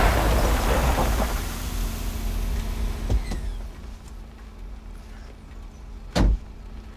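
A Ford Bronco driving off, its engine and tyre noise fading over about four seconds, then a single short thump about six seconds in.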